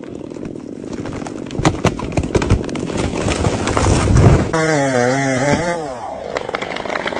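Chainsaw engine running, with a quick run of sharp cracks and knocks; about four and a half seconds in, a wavering pitched tone comes in for about a second and a half, then fades.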